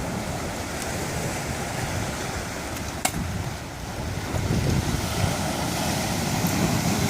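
Wind buffeting the microphone in a steady rumble. About three seconds in comes one sharp crack, the shot of an airsoft Colt 1911 pistol, with a few fainter ticks before and after.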